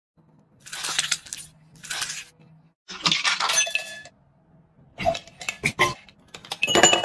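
Fruit, ice cubes and jelly tipped from a scoop into a glass in several short bursts of clinking and clattering. The ice rings against the glass about three seconds in.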